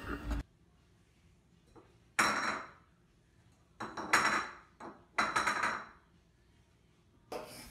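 A cat's food bowl clattering on a tile floor as the cat, lying down, paws at it: about four short knocks spread over a few seconds, each with a brief ring.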